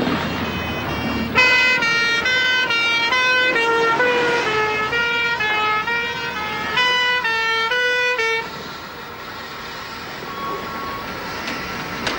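A melody on bagpipes: a run of short notes stepping up and down for about seven seconds, then stopping suddenly.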